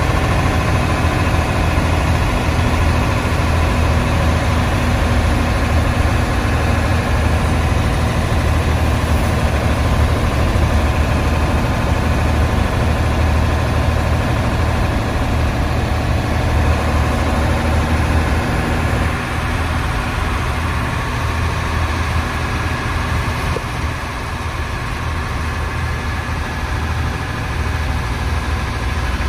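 Old Hino diesel engine of a non-AC bus running, heard from inside the cabin: a steady, low drone that eases slightly about two-thirds of the way through.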